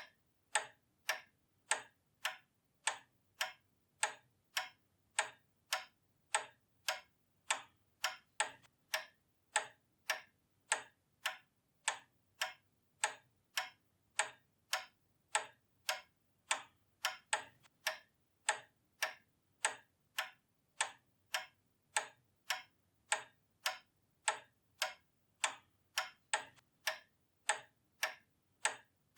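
Pendulum clock ticking steadily, its escapement giving even, sharp ticks a little under two a second.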